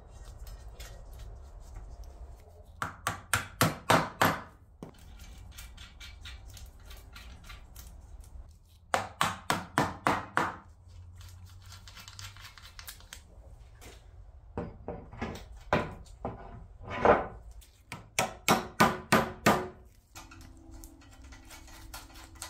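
Bolts being fastened through wooden bench slats into a cast-iron frame: several runs of quick, sharp metallic taps, about five a second, each run of six to eight strikes growing louder, with pauses between them.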